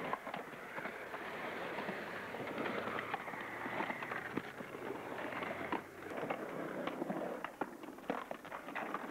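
Skateboards riding a concrete bowl: a busy, crackly rolling noise of urethane wheels on concrete, broken by many sharp clacks of boards and trucks.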